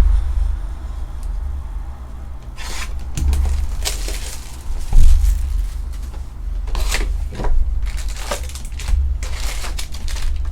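Trading-card pack wrappers crinkling and cards being handled, with scattered crackles from about two and a half seconds in. Dull bumps against the table come at the start and about five seconds in.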